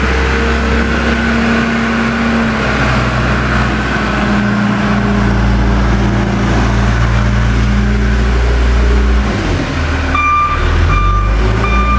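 Diesel engine of a bulldozer clearing snow, running under load with its pitch shifting as it works and dropping about nine seconds in. Near the end its reversing alarm starts beeping about twice a second.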